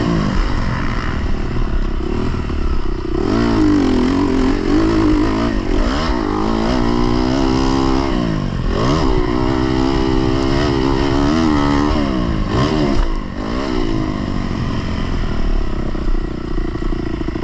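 Dirt bike engine revving up and falling back again and again as the bike is ridden over a motocross track, the throttle opened and closed through the turns and bumps. About thirteen seconds in it eases off and runs at a lower, steadier note.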